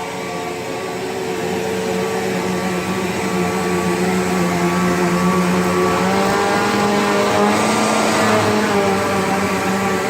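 Motor of a Bissell PowerGlide Platinum bagged upright vacuum running steadily, a whine over a rush of air. It gets louder over the first few seconds, and its pitch wavers a little in the second half.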